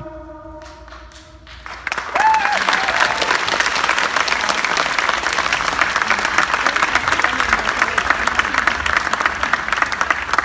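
The last held notes of the recorded music die away. About two seconds in, the audience breaks into steady applause, with a brief cheer just as the clapping starts.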